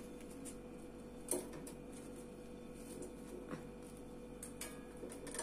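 Quiet kitchen handling: a few faint clicks and taps as fried paneer balls are set into sugar syrup in a steel pot, over a faint steady hum.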